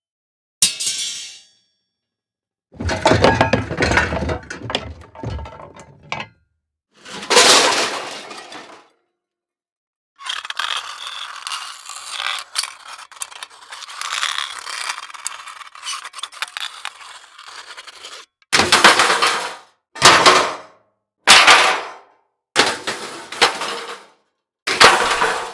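A series of separate impact and breakage sound effects with silent gaps between them: a short hit, a heavy crash with debris, another crash, a long high clattering scrape of about eight seconds, then five short sharp hits in quick succession.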